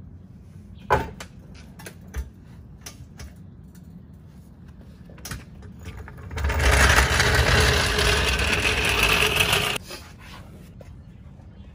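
A few sharp clanks from the floor jack near the start. About six seconds in, a power impact wrench runs steadily for about three and a half seconds and cuts off suddenly, taking off the car's front wheel.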